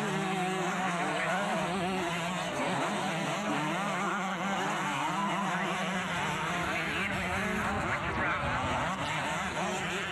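Several two-stroke motocross bikes racing past, their engines revving up and down over one another throughout.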